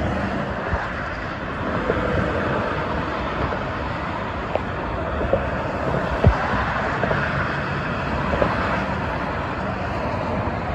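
Steady drone of busy multi-lane expressway traffic, cars and trucks passing with tyre and engine noise, broken by a few short knocks, the loudest a low thump about six seconds in.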